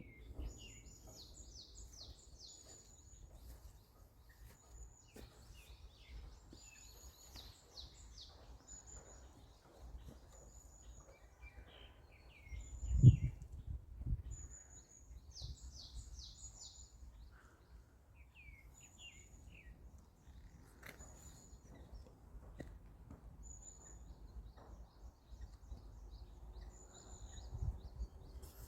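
Songbirds singing: a short high note repeated every second or two, and now and then a quick run of falling notes. About halfway through, a single loud, low thump stands out over a faint low rumble.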